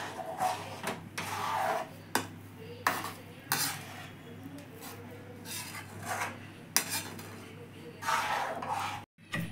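Perforated steel spatula stirring thick milk and vermicelli in a metal kadhai, scraping against the pan's sides and bottom in irregular strokes, with a steady low hum underneath. The sound cuts out abruptly just before the end.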